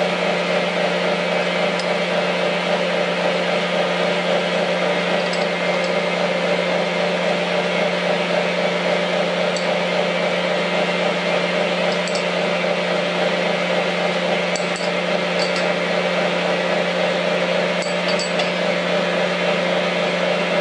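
Milling machine running with a steady hum, spindle turning, as it sets up to mill flats on a drawbar. A few light metal clinks come about halfway in and near the end as the table clamp is worked.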